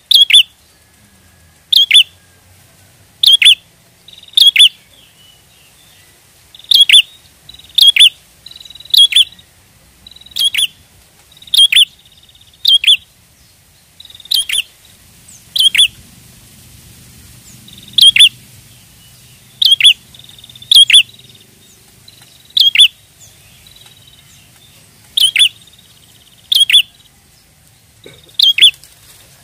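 Prinia (prenjak) giving short, sharp chirping calls over and over, about one every second or so, sometimes two in quick succession. It is a lure call, played to draw wild prinias in.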